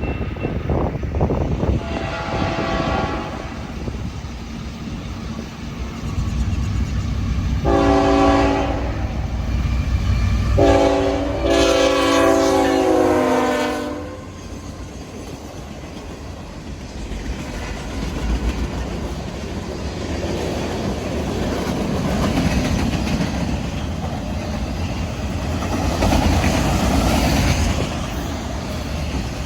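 Train horn sounding three blasts, the last and longest lasting about three seconds, over the steady rumble of the train's engines and wheels on the rails, which grows louder again in the second half.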